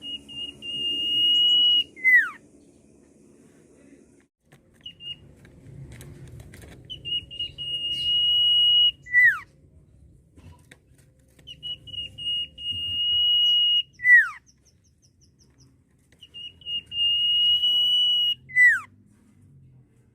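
Sirtu iora whistling its song four times: each phrase is a long, steady high whistle ending in a quick downward-sliding note.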